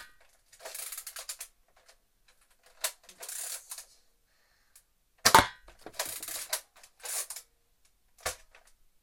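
A Nerf Slingfire blaster firing foam darts, with a sharp thump from each shot about five seconds in and again near the end. Between the shots the lever action clatters and rattles as it is worked to cock and load the next dart.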